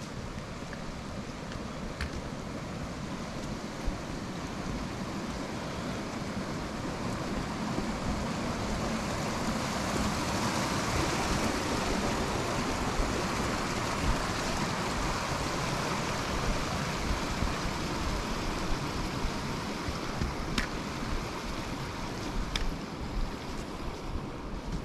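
A small mountain stream rushing, loudest about halfway through, with wind on the microphone.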